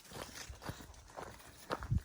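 A hiker's footsteps on a trail, about two steps a second, with a heavier step near the end.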